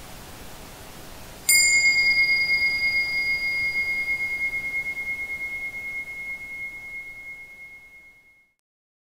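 A single struck bell-like tone, high and clear, marking the end of the timed session; it rings out and fades over about six seconds. A steady soft hiss sits underneath and fades out with it.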